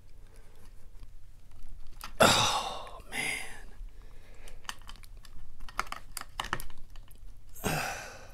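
Small metallic clicks and taps of a lock and its lock-picking tools being handled by hand, with louder rustling bursts about two, three and nearly eight seconds in.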